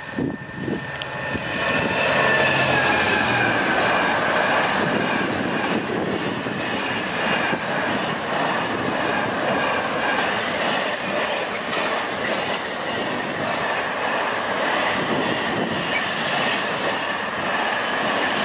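Diesel-hauled container freight train passing close by at speed: the locomotive's engine is heard in the first few seconds as it arrives, then a long, steady rumble of intermodal wagons with a sustained high-pitched wheel squeal.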